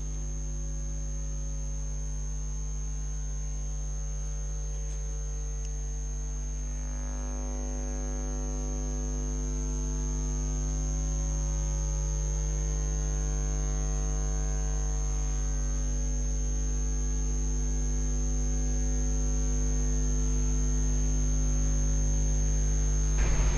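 Steady electrical mains hum with a buzzy stack of overtones and a thin high whine, growing slowly louder.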